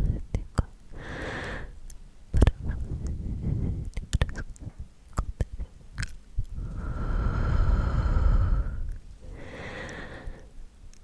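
Close-microphone ASMR sounds: muffled rubbing and stroking right on the microphone, with scattered sharp clicks of mouth sounds and two longer breathy sounds in the second half.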